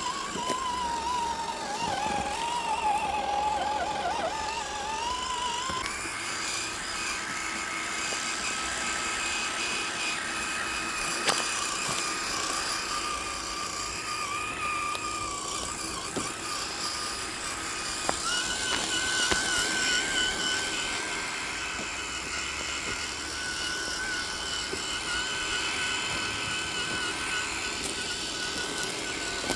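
Electric motor and gearbox whine of an Axial SCX10 III RC crawler as it drives, the pitch rising and falling with the throttle. The whine wavers during the first few seconds, then runs steadier and higher, stepping up again partway through.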